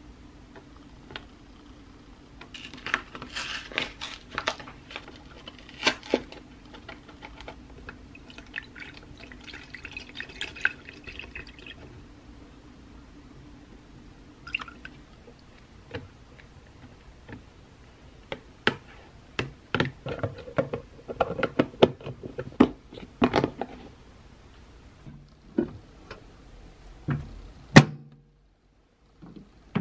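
Plain yogurt drink and then milk from a carton poured into a clear plastic container, a soft liquid pouring sound with many short clicks and knocks of the carton and container being handled.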